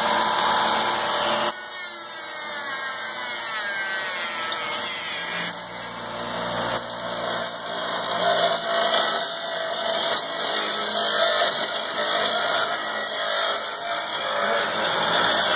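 Handheld rotary tool with a cutoff wheel running steadily. Its whine falls in pitch a couple of seconds in, then it keeps running.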